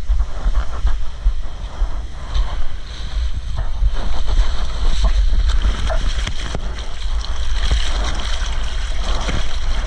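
Breaking surf and whitewash washing over a surfboard, heard from a camera mounted low on the board: a heavy rumble of water and wind buffeting the microphone, with many sharp splashes as waves hit the board.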